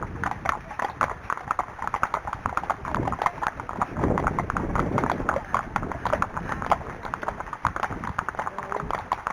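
Unshod Arabian horse's hooves clip-clopping steadily in a quick run of knocks, with wind buffeting the microphone, strongest from about three to five seconds in.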